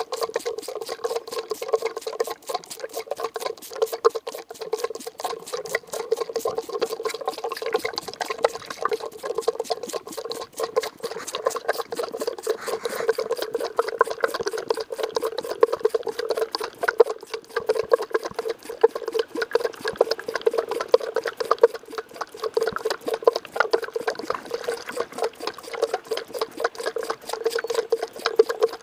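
French Alpine goat kid sucking milk from a bottle nipple: rapid, regular sucking strokes with milk gurgling in the bottle, heard close against the bottle, over a steady hum.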